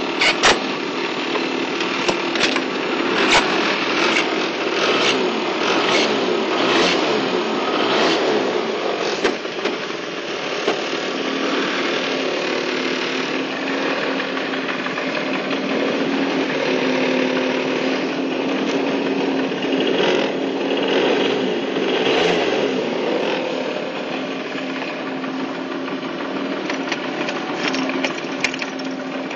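Honda Gyro scooter's small single-cylinder engine running steadily, with sharp clicks and knocks over the first several seconds.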